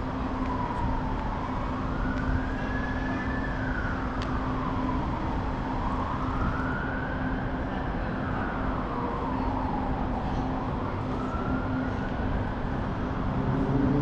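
Distant emergency vehicle siren wailing, its pitch slowly rising and falling about three times, over a steady background hum of city noise.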